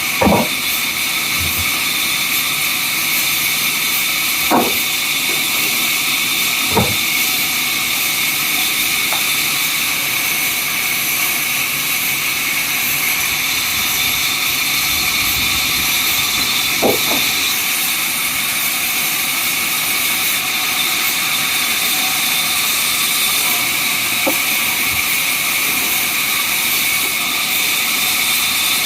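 Sawmill saw running with a steady high-pitched whine and hiss, broken by a few short knocks now and then.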